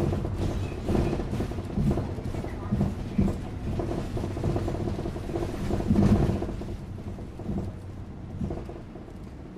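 Bus cabin sound: the engine running with a low rumble, with knocks and rattles from the bus body. It grows louder to about six seconds in, then drops away and quiets.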